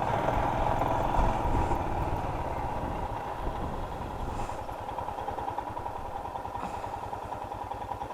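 Motorcycle engine running at low speed with an even, rapid beat. It eases off slightly partway through.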